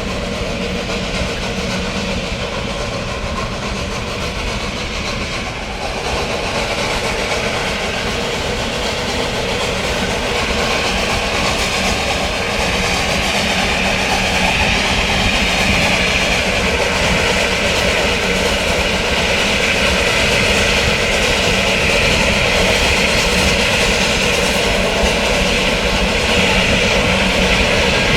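Narrow-gauge steam train running along the track: a steady mechanical rumble with several held tones, growing gradually louder and hissier.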